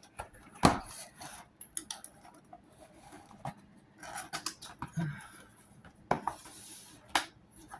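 Hands opening and handling a boxed diamond painting kit: scattered sharp clicks and taps of the box and its contents, with light rustling in between, the loudest click under a second in.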